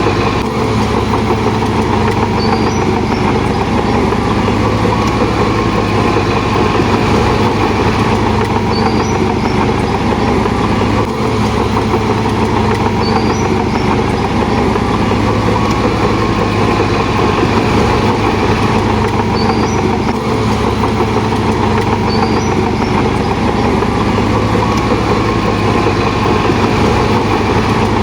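Shantui DH17 bulldozer's diesel engine running steadily and loudly.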